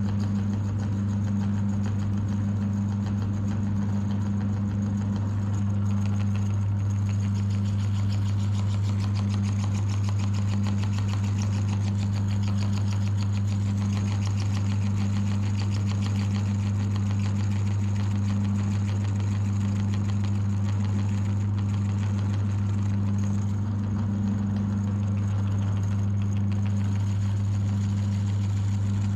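Electric meat grinder's motor running steadily with a constant low hum and a light buzzing rattle.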